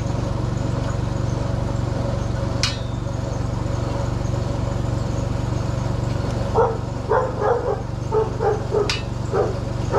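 A dog barking repeatedly, two to three barks a second, starting about two-thirds of the way in, over a steady low hum. Two sharp clicks, one early and one near the end.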